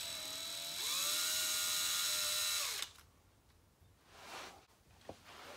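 Cordless drill boring a pilot hole through the plastic rear bumper. The motor's whine rises in pitch a little under a second in, then cuts off abruptly about three seconds in, followed by faint handling rustles and a click.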